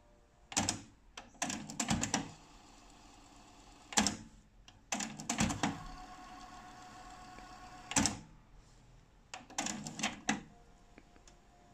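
Technics RS-TR252 cassette deck's transport mechanism clicking and clunking in about six groups as its buttons are pressed, stopping the tape and switching the play direction.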